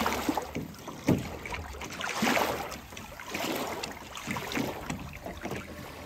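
Small waves lapping and slapping against the hull of a beached Placid Boatworks RapidFire solo canoe and the sandy shore, in uneven washes with a sharper slap about a second in.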